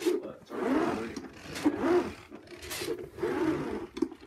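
Dirt Devil carpet sweeper pushed back and forth over carpet, its rollers and brush running with each stroke in a series of swells about a second apart.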